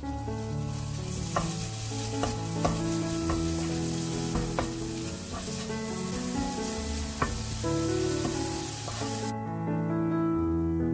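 Minced garlic sizzling in hot oil in a nonstick frying pan, stirred with a wooden spoon that scrapes and knocks against the pan several times. The sizzle cuts off about nine seconds in, with background music underneath throughout.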